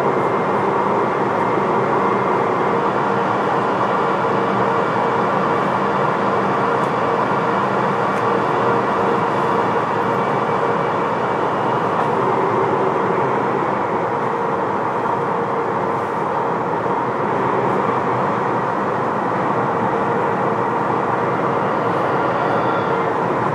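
Rubber-tyred VAL automatic metro train running at steady speed through a tunnel, heard from inside the car: an even rushing running noise with a faint steady hum under it.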